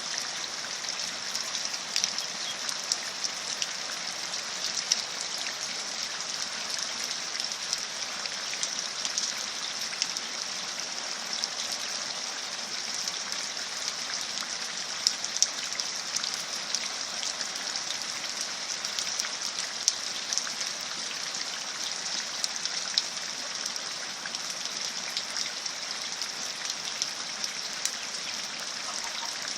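Steady rain falling, a constant hiss with many scattered louder drops striking a surface.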